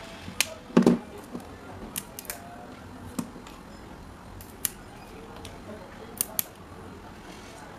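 Small clicks and taps of an electric fan motor's stator, its wire connector and hand tools being handled on a workbench mat, with one louder knock a little under a second in and scattered clicks after, some in quick pairs.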